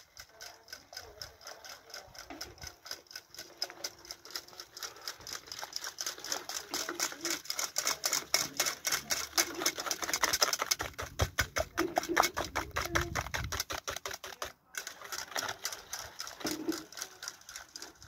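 Wire balloon whisk beating batter in a stainless steel bowl: a fast, even clatter of the wires striking the metal bowl, several strokes a second, louder in the middle and broken off briefly near the end.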